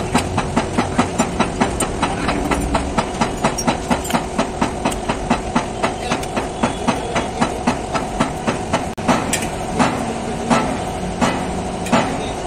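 Hydraulic press and its pump unit running: a steady mechanical hum with a rapid regular clicking, about three clicks a second, which gives way after about nine seconds to slower, spaced knocks.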